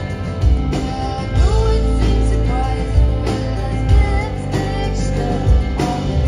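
A live rock band playing loudly: electric guitars, bass and drums, with a woman singing lead, drum hits recurring about once a second.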